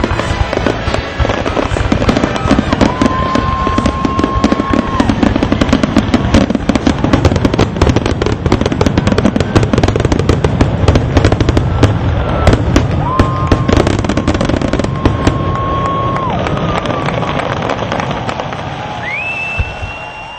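Fireworks display: a dense run of bangs and crackling, with several long whistles, fading out near the end.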